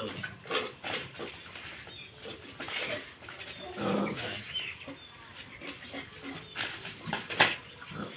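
Cats and puppies eating from plates, with irregular clicks and ticks of chewing and food on the plates, a short animal call about four seconds in, and one sharp knock near the end.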